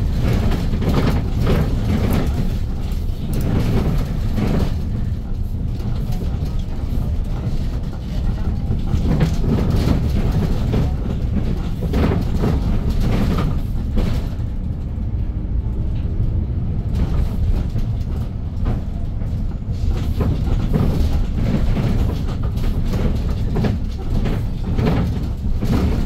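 Cabin sound of a 2022 Hyundai New Super Aerocity city bus on the move: its C6AF Q290 CNG engine running with road rumble and the frequent rattle of the bus's fittings. The engine note rises for a few seconds about halfway through.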